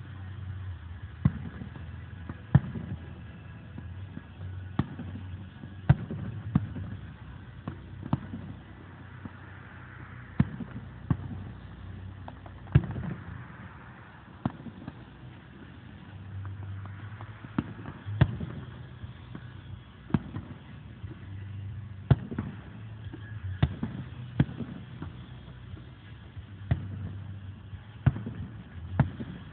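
Aerial fireworks shells bursting: a long run of sharp bangs at irregular intervals, sometimes two or three within a second, each with a short echoing tail.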